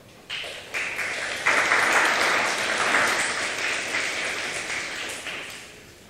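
Audience applauding: the clapping starts within the first half second, swells over the next second or so, then dies away near the end.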